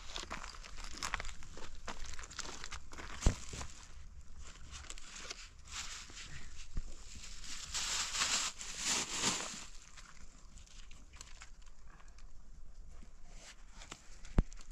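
Rustling and crinkling handling noises, louder for a moment about eight seconds in, with two sharp knocks, one about three seconds in and one near the end.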